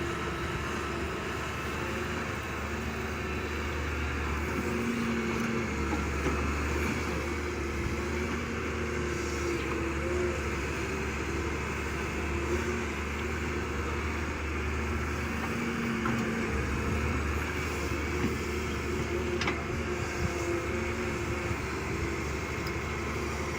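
Diesel engine of heavy earthmoving machinery running steadily, its low hum dipping briefly about four seconds in and again about sixteen seconds in.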